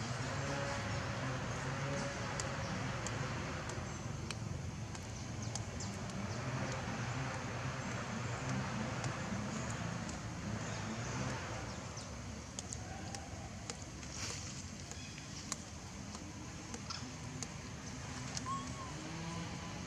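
Outdoor background: a low murmur of distant voices, with a few faint short chirps and scattered high ticks.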